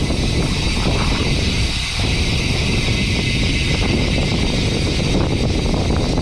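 Loud, steady rumbling noise with a hiss on top, like wind on the microphone outdoors.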